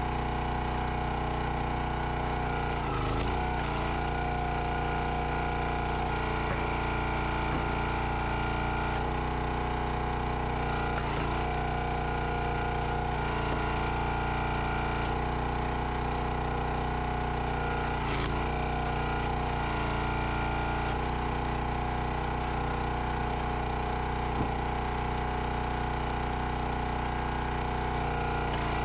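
Gas engine of a Countyline 25-ton hydraulic log splitter running steadily while oak rounds are split. Its pitch dips briefly a few times as the engine takes load.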